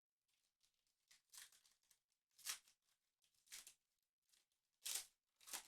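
Faint, short crinkles and rustles of a foil trading-card pack and its cards being handled: about five brief ones, roughly a second apart.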